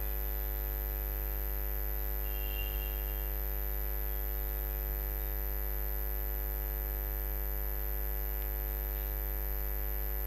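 Steady electrical mains hum with many overtones, and a constant high-pitched whine above it.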